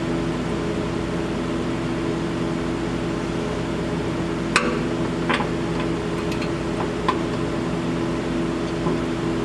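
A steady mechanical hum, with a few light clicks and knocks about halfway through.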